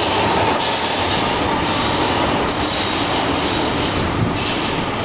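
CSX Q300 freight train rolling past close by: a loud, steady noise of steel wheels running on the rails, its high hiss swelling and fading about once a second.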